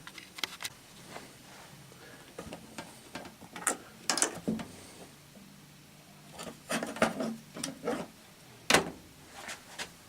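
Scattered clicks, knocks and rubbing, like things being handled and set down on a bench, over a faint steady hum.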